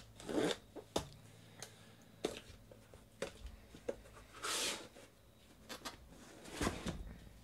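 A cardboard shipping box being cut open and unpacked: a blade slitting the packing tape, with light knocks and handling noises. About halfway through there is a longer scraping rasp as the flaps are pulled open.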